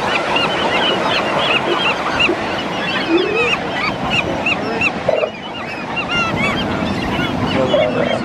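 A dense chorus of short, arched honking calls from many birds, several a second, over a steady wash of surf.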